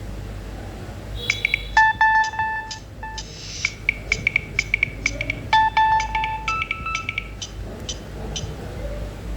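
A Nokia ringtone: a short electronic melody of quick beeping notes played through a Nokia 2760 phone's small speaker, starting about a second in and stopping near the end, over a steady low hum.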